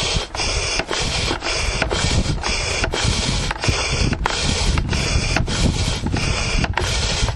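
Air mattress pump pumping air in a steady rhythm, a rushing of air that breaks off briefly about three times a second, like breathing.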